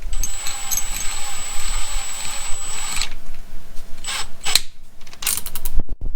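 Power drill driving a step drill bit through a car body panel. It runs steadily with a high whine for about three seconds, then comes in a few short bursts near the end as the hole reaches size.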